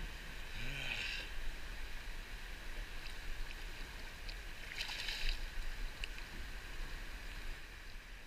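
River water running and lapping around a boat, a steady wash with two short splashes, about a second in and about five seconds in.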